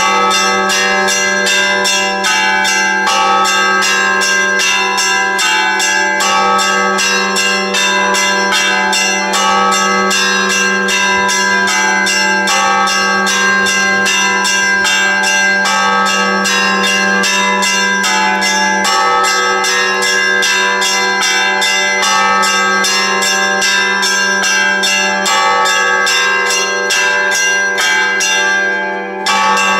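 Church bells ringing: several bells of different pitches struck in a steady, rapid rhythm of about three strikes a second, their tones overlapping. Near the end the striking stops and the bells ring on.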